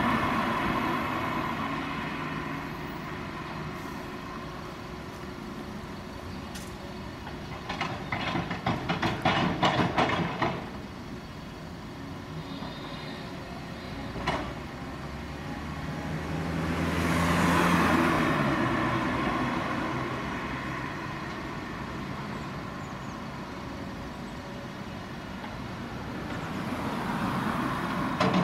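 Diesel engine of a Cat tracked excavator running steadily under load while digging, with a burst of rapid clattering about eight seconds in and a single knock around fourteen seconds. A passing car swells up and fades about seventeen seconds in, and another comes up near the end.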